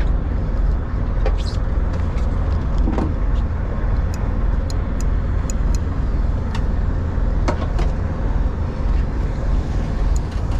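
Steady low rumble aboard a small fishing boat at sea, the boat's engine and wind on the microphone mixed together, with a few faint clicks as a spinning reel is worked.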